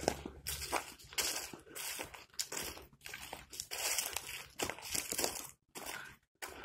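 Footsteps crunching on a gravel path covered in dry fallen leaves, a quiet run of steps.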